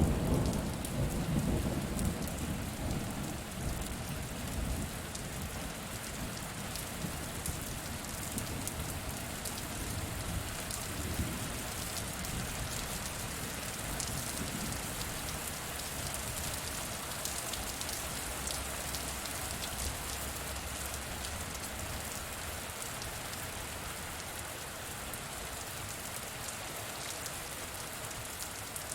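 Steady rain falling on a surface, with many small drop ticks. The low rumble of thunder dies away over the first few seconds.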